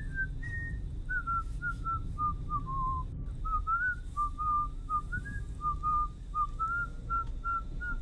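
A person whistling a tune: a single line of short, clear notes that steps downward over the first few seconds, then wanders around a lower range. A steady low rumble sits underneath.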